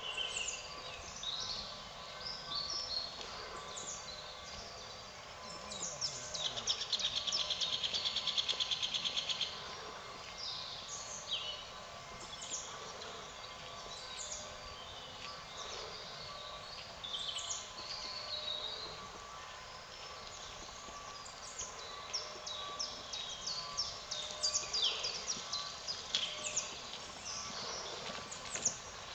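Small songbirds chirping and calling on and off, with a rapid high trill lasting about three seconds from about six and a half seconds in, over a faint steady hum.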